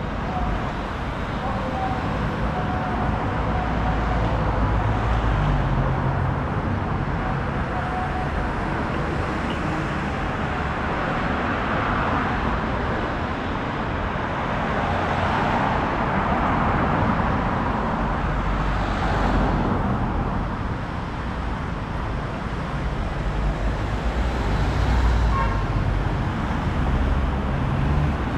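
City street traffic: a steady low engine rumble of passing cars and other vehicles, swelling several times as vehicles go by.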